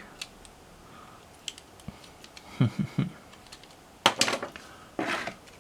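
Light clicks and taps of small diecast toy cars being handled and set down, scattered and irregular, with a louder clack and a short rustle near the end.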